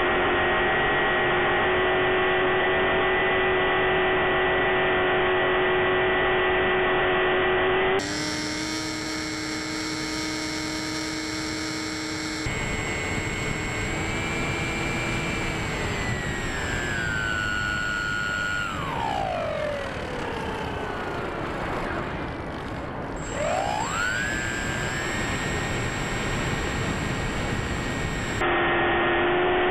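Bixler 3 RC plane's electric motor and propeller whining steadily in flight, with wind rush. Past the middle the whine slides down in pitch as the motor slows, then climbs back up a few seconds later as it speeds up again. The opening and closing stretches sound duller and thinner, as heard through the FPV video link.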